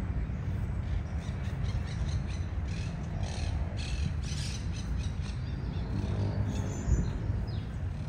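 Flock of parakeets giving a run of short, harsh squawking calls, loudest about four seconds in, with a few more near the end, over a steady low rumble.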